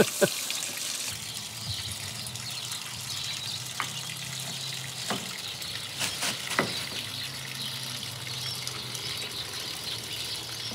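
Water rushing and splashing, with a steady low hum that comes in about a second in and a few sharp clicks or knocks in the middle.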